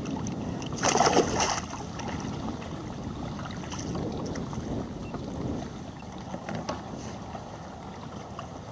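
Steady wind and water noise around a fishing kayak, with a brief louder burst of noise about a second in and a few faint clicks later.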